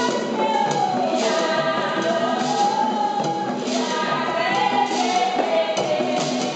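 A group of women singing a melody together, accompanied by hand-held shakers shaken in a steady rhythm.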